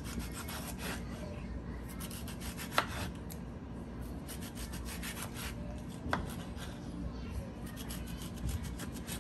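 Serrated kitchen knife sawing through a tomato in short back-and-forth strokes, in several runs. The blade taps sharply on the wooden cutting board as a slice comes free, about three seconds in and again about six seconds in.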